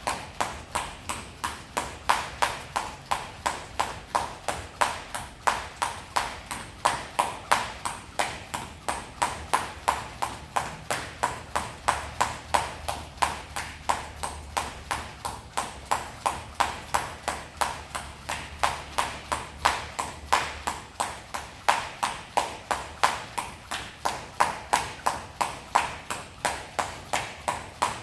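Jump rope slapping the floor in a steady rhythm, about three strikes a second, some strikes louder than others.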